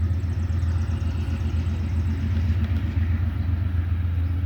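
Diesel locomotive engine of the approaching Amtrak train working hard uphill: a steady low drone.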